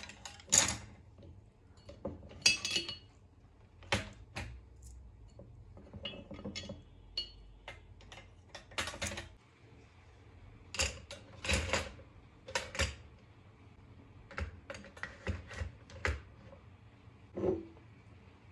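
Kitchen utensils clattering as they are lifted out of a glass jar and dropped one by one into a black metal wire utensil holder: a string of short, sharp knocks and clinks at irregular intervals, several coming in quick clusters.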